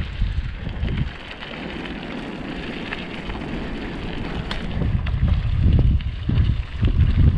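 Wind buffeting the microphone of a moving bicycle rider, with a crackling rustle of tyres rolling over a forest path. The low rumble eases about a second in and comes back strongly around five seconds in.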